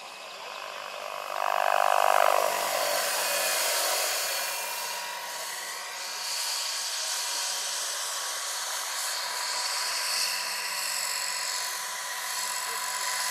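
Large electric scale model helicopter, a Vario SA-341/342 Gazelle with a 2.36 m main rotor, flying: a steady whine and hiss from the electric motor and rotor blades. It gets louder for about a second, starting about a second and a half in.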